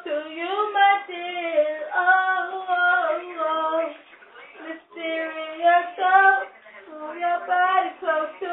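A teenage girl singing alone with no accompaniment, in sung phrases with held notes and a short break about four seconds in.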